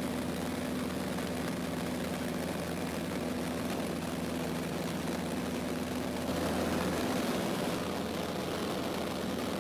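Cessna 152's Lycoming O-235 four-cylinder engine and propeller running steadily in flight, heard from inside the cabin, briefly a little louder about six seconds in.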